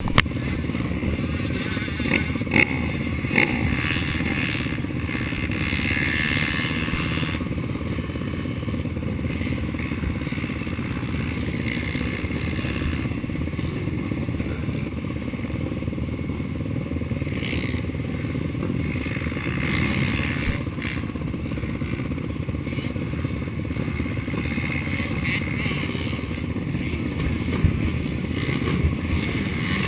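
Racing ATV engine running hard at speed, with the machine clattering over the track. A few sharp knocks near the start and one near the end.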